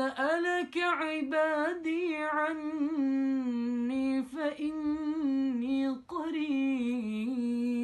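A man's voice chanting Quran recitation in a melodic tajweed style, drawing out long ornamented notes that waver and turn in pitch. The voice breaks off briefly about six seconds in for a breath, then takes up a second held phrase.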